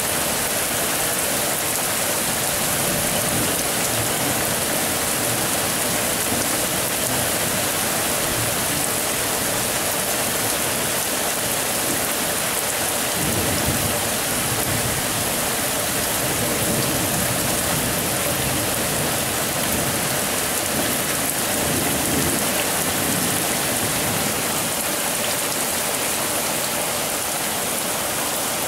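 Thunderstorm: steady rain falling, with low rumbles of thunder about halfway through and again a few seconds later.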